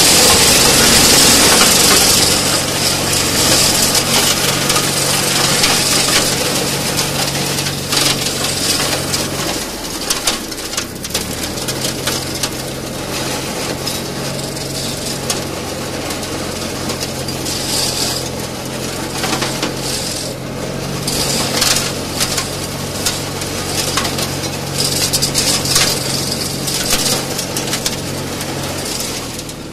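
Tractor engine running steadily while its PTO-driven flail mulcher shreds birch saplings and brush, with crackling and rattling as wood is hit and thrown against the housing, louder in spells. The engine hum dips briefly about ten seconds in.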